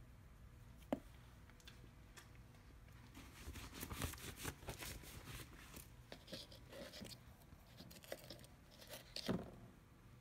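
Plastic measuring scoop scraping and tapping in plastic tubs of powder: a sharp tap about a second in, scraping and rustling through the middle, and a louder knock near the end.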